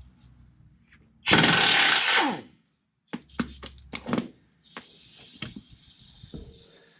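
Power tool, most likely an air impact wrench, run in bursts on the mower's bearing bolts: one long burst of about a second and a half that winds down in pitch as it is released, then several short bursts, then a steadier hissing stretch with a few hits.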